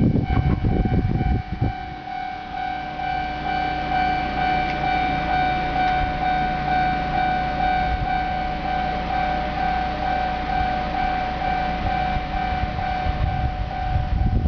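Japanese railway level crossing warning bell ringing, a high 'kan-kan' ding repeated in a steady, even rhythm. A loud low rumble sits under it for the first second and a half.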